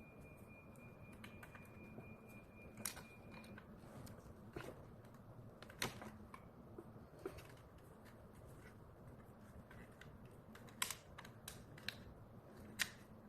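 Scattered light plastic clicks and taps at irregular intervals from handling a residential smoke alarm while a battery is fitted into it, with a few sharper clicks near the end.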